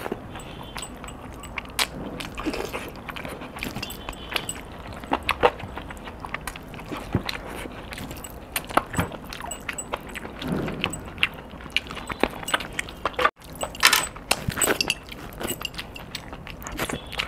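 Close-up eating sounds: biting and chewing chicken leg pieces in a green masala gravy, with wet lip smacks and sticky clicks of the mouth and fingers, and now and then a light jingle of metal rings and bracelets.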